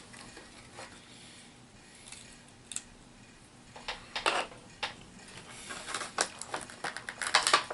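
Sharp clicks and taps of hard plastic HeroClix figures being handled and set down on a table. A few are scattered through the first half, and they come quicker and louder near the end.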